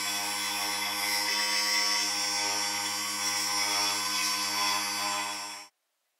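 An electric power tool running at a steady speed, a motor hum with a dense hiss over it. It cuts off abruptly near the end.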